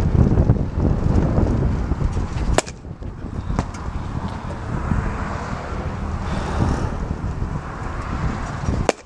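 Wind buffeting the microphone with a steady low rumble. It is broken by two sharp cracks, one about two and a half seconds in and one near the end.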